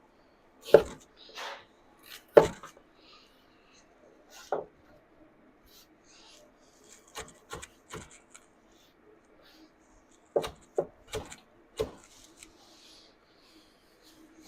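Kitchen knife chopping vegetables on a cutting board while dicing mirepoix: single sharp strikes a second or two apart at first, then quicker clusters of chops later on.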